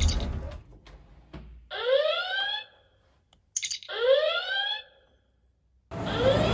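Star Trek Bluetooth communicator badge chirping as it is tapped: two rising chirps about two seconds apart, each with a short click just before it. Near the end, train noise comes in suddenly.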